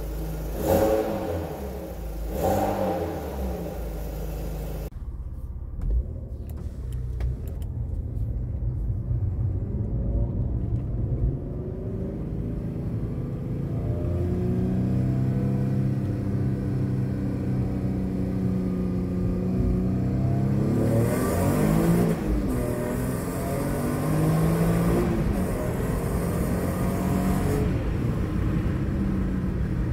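Alfa Romeo 156 2.5 V6, fitted with 45 mm intake runners and a remap, blipped twice to high revs while standing. It is then heard from inside the cabin, pulling under acceleration with its pitch climbing and dropping back between gears.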